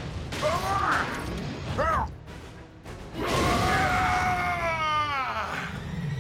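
Strained grunts from a fighting robot character, then, after a short lull, a long cry that bends down in pitch and breaks off, over a dramatic music score.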